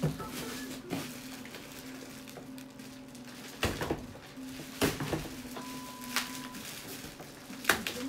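Packaging and a boxed fan being handled during unboxing: a few separate sharp knocks and clatters, over a faint steady low hum.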